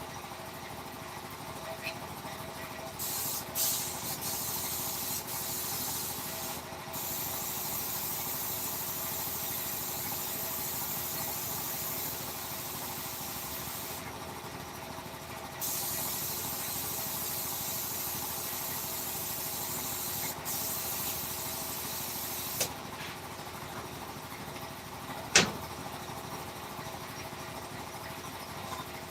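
Compressed air hissing in long spurts that start and stop abruptly, over a steady machine hum. A single sharp click comes near the end.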